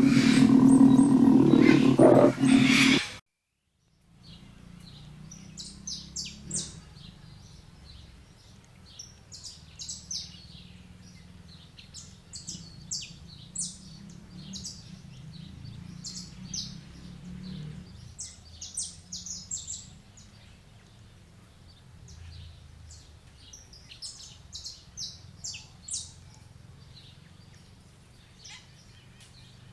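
Saffron finch (canário-da-terra) singing: repeated short, high chirping phrases over a steady low background rumble. It is preceded by a loud sound lasting about three seconds that cuts off into a moment of silence.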